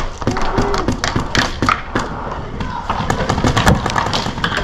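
Paintball markers firing in rapid, irregular volleys, a dense stream of sharp pops and paint hitting around.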